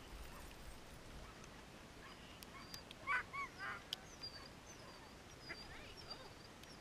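Sled dogs yelping and whining, faint apart from a cluster of three short yelps about three seconds in.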